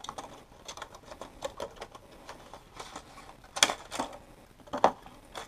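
Plastic lure packaging being opened by hand: a run of irregular clicks and crackles as the clear plastic tray slides and flexes out of its sleeve, loudest about three and a half seconds in and again near the end.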